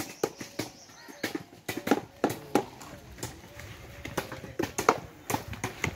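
Footsteps walking through grass and undergrowth, an uneven run of soft thuds and rustles, about two or three steps a second.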